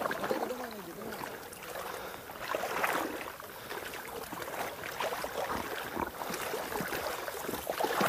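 Irregular splashing and rustling of something moving through shallow water and reeds.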